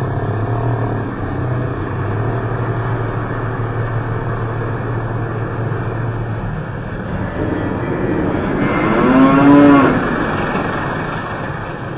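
A cow-painted milk delivery truck driving past with a steady low engine hum, and near the end a loud mooing cow call played from the truck as it passes close by.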